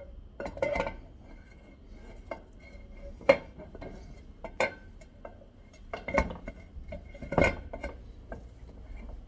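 Scattered sharp metal clinks and knocks as the casing of a Samsonas sequential gearbox is slid down by hand over the gear stack, metal touching metal. About half a dozen separate knocks, the sharpest about three seconds in, with others near the start, after four and a half seconds, around six seconds and at seven and a half seconds.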